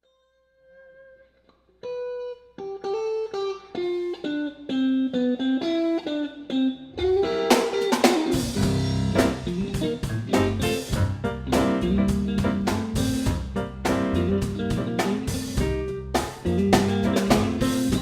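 Blues band instrumental intro: a lone electric guitar plays a single-note riff, then drums and bass come in about seven seconds in and the full band plays on.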